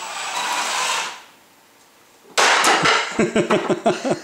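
Combat robot's electric motors whirring with a thin high whine for about a second. Then, about two and a half seconds in, a loud crash as the wooden stool tips over onto the robot, followed by a fast run of knocks and clatters of wood against the robot's frame.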